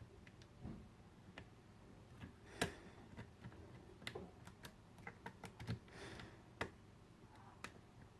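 Faint, irregular metallic clicks and taps of lock picks working in the keyway of a Squire SAL/40 padlock, with one sharper click a little past two and a half seconds in.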